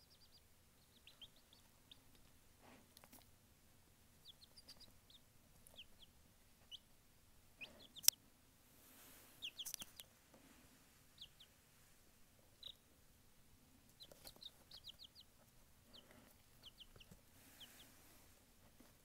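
Baby showgirl silkie chick peeping: short, high peeps scattered throughout, some in quick runs of three or four. A single sharp click about eight seconds in.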